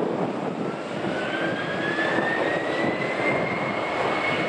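Jet airliner engines: a whine rising steadily in pitch over a broad, steady rush.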